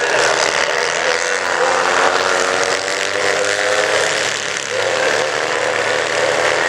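Several 2CV-class kart cross karts, each powered by a 602 cc Citroën 2CV air-cooled flat-twin engine, racing past on a dirt track, their overlapping engines revving and changing pitch. The engine pitch dips and rises again about four and a half seconds in.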